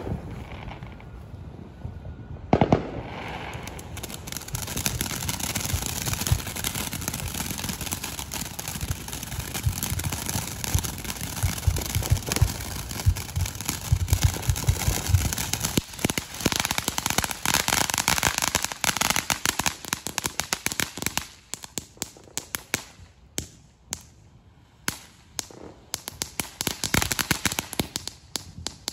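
Ground fountain firework spraying sparks, starting about two and a half seconds in: a steady hiss thick with crackles. Late on it thins to scattered crackling pops for a few seconds, then picks up again.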